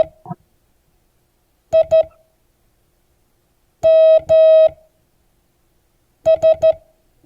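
Morse code tone sending the word AIMS: the tail of the A's dash, then two dots (I), two dashes (M) and three dots (S), each letter about two seconds apart. It is a steady single-pitch beep keyed on and off.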